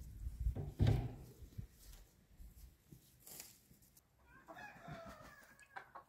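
A couple of low thumps in the first second, then about four seconds in a chicken calls from the coop: a drawn-out, wavering call lasting over a second.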